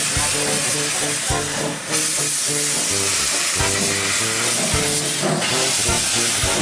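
030T steam tank locomotive standing and hissing steam steadily and loudly, the hiss easing briefly about two seconds in. A simple background tune plays underneath.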